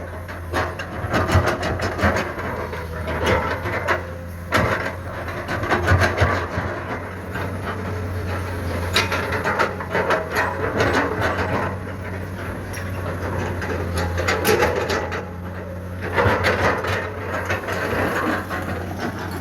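Komatsu PC210 excavator's diesel engine running steadily, under a continual irregular crackle of scraping and clattering from the bucket working through soil.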